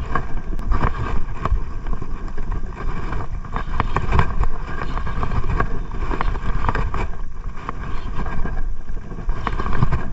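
Wind buffeting the microphone: a loud, uneven rumbling rush, with scattered small knocks and clicks through it.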